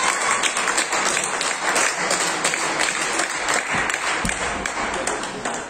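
Spectators clapping in applause for a won point, the clapping thinning and fading out near the end.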